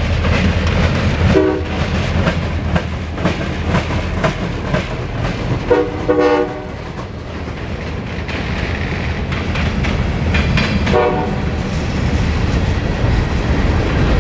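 Norfolk Southern diesel freight train passing close by, its locomotive engine rumbling and its wheels clicking over the rail joints. The horn sounds in three short blasts, about one, six and eleven seconds in, the middle one the longest.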